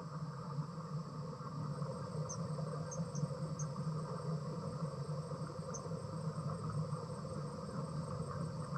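Steady high-pitched insect chorus, cricket-like, over a low steady hum, with a few brief high chirps in the middle.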